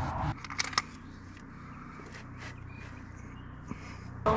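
Quiet outdoor ambience, with a couple of sharp clicks just under a second in and a few faint ticks after.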